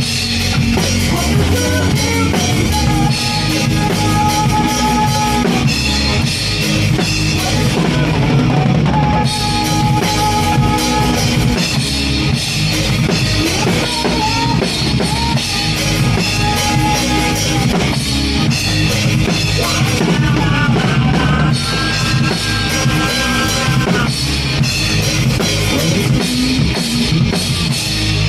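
Live rock band playing, with the drum kit up front: steady kick, snare and cymbal hits under held electric guitar lines.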